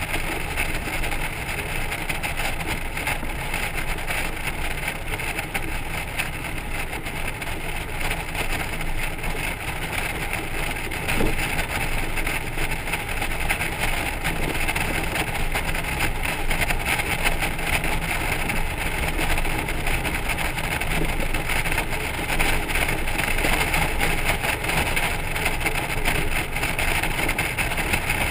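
Honda Gold Wing motorcycle and its trailer cruising at road speed, heard from the trailer: steady wind and road noise with the engine running beneath it.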